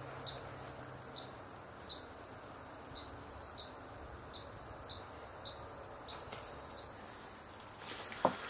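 A cricket chirping steadily, one short high chirp about every two-thirds of a second, over a faint steady high tone. A few knocks and rustles near the end.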